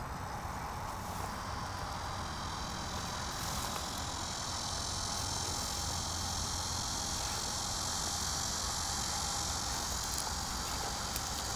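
Steady high-pitched insect chorus, growing louder about three seconds in, over a low steady rumble.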